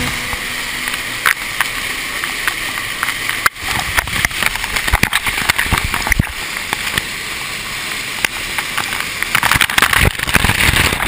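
Waterfall water rushing and splashing right at the camera, a steady hiss with many scattered knocks and splashes. The sound briefly dips about three and a half seconds in.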